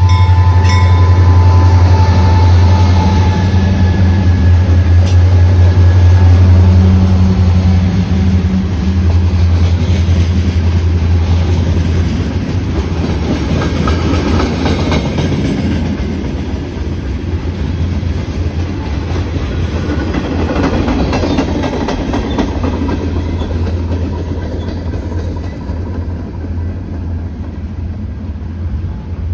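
Norfolk Southern diesel freight locomotives pass close by with a loud, deep engine drone. Open-top freight cars follow, rolling past with wheel clatter, and the sound fades as the end of the train moves away.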